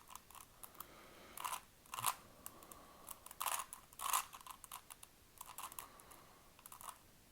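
Rubik's cube being twisted by hand, its plastic layers clicking and clacking in short irregular bursts as the solved cube is turned into a checkerboard pattern.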